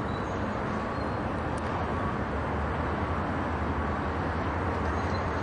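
Steady outdoor rumble of engines under a constant hiss, the low rumble growing a little stronger about halfway through.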